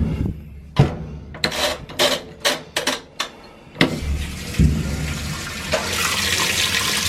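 A run of sharp clicks and knocks, then water rushing into a Whirlpool top-load washing machine's tub as it starts to fill, starting about four seconds in and getting louder about six seconds in.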